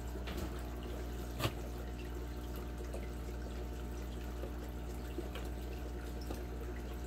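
Aquarium filter running: a steady trickle of water over a constant motor hum, with a sharp click about a second and a half in.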